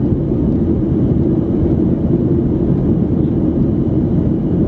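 Steady cabin noise of a Boeing 737-800 in flight: an even, deep rush from its CFM56-7B engines and the airflow over the fuselage, heard inside the cabin.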